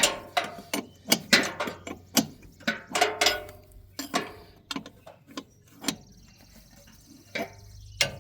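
Hand tools clicking and knocking on metal parts of a tractor wheel hub: a fast, irregular run of sharp clicks for about four seconds, then scattered knocks with a short pause near the end.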